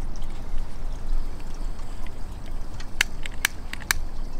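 Three sharp clicks about half a second apart, starting about three seconds in, as a hand lighter is sparked to light the gas burner of a gas-fired Roundhouse live-steam garden-railway locomotive. Under them runs a steady low rushing noise.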